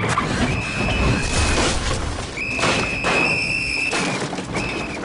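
Car tyres screeching in two long squeals and a short third one, while a car smashes through a wooden picket fence with crunching and scraping of splintering wood and metal.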